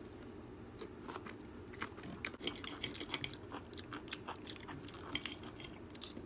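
Quiet eating sounds: a mouthful of asparagus being chewed, with scattered sharp clicks and scrapes of a knife and fork on a plate as a steak is cut, thickest in the middle.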